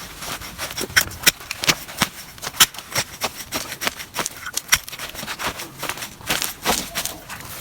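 Digging into soil to lift a cat's-ear plant: irregular scraping, crunching and crackling of earth and roots, several sharp strokes a second.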